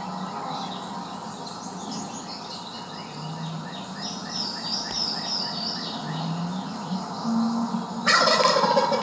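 A wild turkey gobbler gobbles once, loud and rattling, about eight seconds in. Before it, songbirds chirp in quick high runs.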